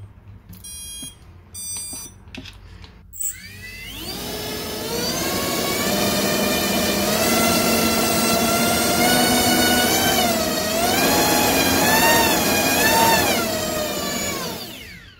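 AOKFLY RV1407 3700KV brushless motor with a 4-inch propeller on a thrust-test stand, run on a 4S battery. A few short electronic beeps come about a second in; then the motor spins up from about three and a half seconds into a rising whine, holds at high throttle with its pitch wavering up and down, and winds down just before the end.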